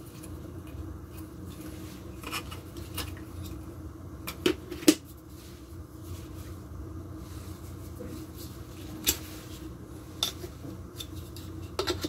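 Plastic parts of a mini cordless vacuum cleaner being handled, with scattered sharp clicks and knocks; the loudest come about four to five seconds in and again around nine seconds. A faint steady low hum runs underneath.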